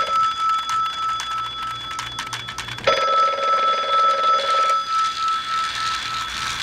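Telephone ringing in long rings of about two seconds, with a pause of about three seconds between them; one ring ends as the sound opens and the next starts about three seconds in. Light clicking is heard during the pause.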